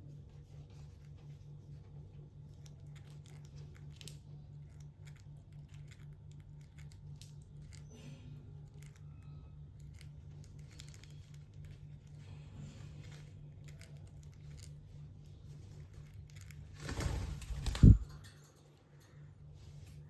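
Faint scattered scratching and crinkling over a steady low hum, with a loud bump near the end.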